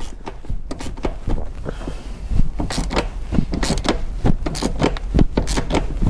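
Hand ratchet fitted with a Torx bit, clicking in irregular strokes as it is worked back and forth on a tight, threadlocked seat-rail bolt.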